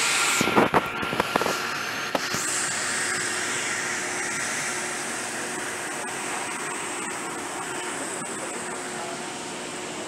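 A few sharp knocks in the first two seconds or so, then a steady whirring hum of cooling fans or air-conditioning machinery with a faint high whine over it.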